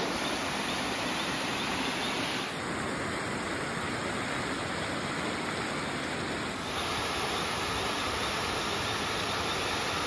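Steady rush of water cascading over rock ledges in small waterfalls and a stream, shifting slightly in tone twice.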